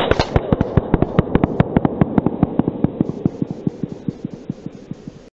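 A shotgun shot heard in a slowed-down, processed replay: one sharp blast, then a fast even train of clicks, about eight a second, that fades away over the next five seconds.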